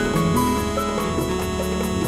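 Instrumental background music with long held notes over a steady bass line.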